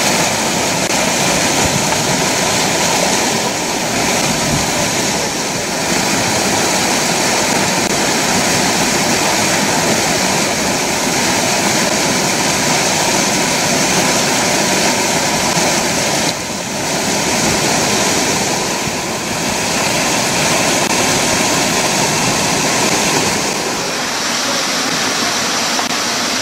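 Loud, steady rush of river whitewater pouring over rocks in a rapid.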